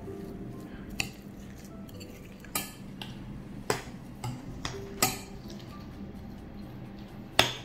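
A large metal spoon stirring a thick mix of mashed banana, soaked sago pearls and grated coconut in a glass bowl. There are about seven sharp clinks of spoon against glass, scattered irregularly, the loudest near the end.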